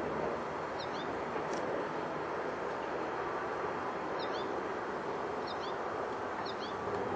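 Steady urban background noise, with four short, high, faint small-songbird chirps spread through it, each a quick double note.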